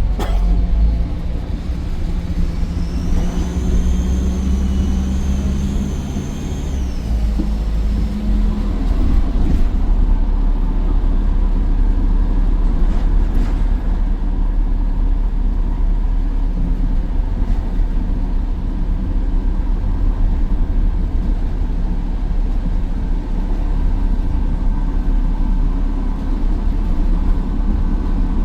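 Optare Versa bus's Mercedes-Benz OM934 5.1-litre four-cylinder diesel with Allison 2100 automatic, accelerating with a high turbo whine that rises and then drops away about seven seconds in. After that the engine runs steadily under way.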